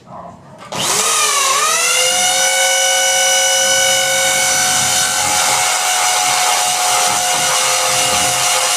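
Electric motor starting about a second in, its whine dipping and then climbing to a steady high pitch, then running loud and even with a hiss.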